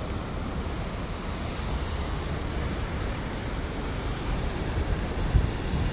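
Sea waves washing and breaking against a rocky shore, with wind rumbling on the microphone; it gets a little louder near the end.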